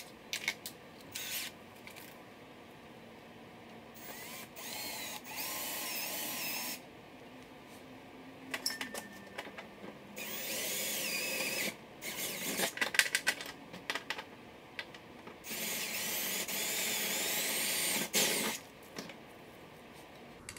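Cordless drill running in three bursts of about two to three seconds each, its whine wavering in pitch as the bit bites. Sharp clicks and knocks fall between the runs.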